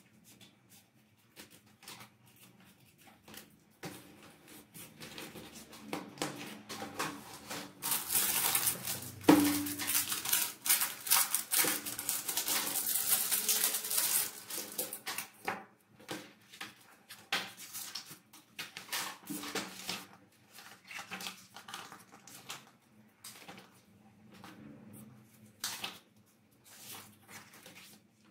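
Hands handling CD cases, a CD booklet and their packaging on a cardboard desk mat: scattered light clicks and taps, with a louder stretch of rustling in the middle lasting about seven seconds.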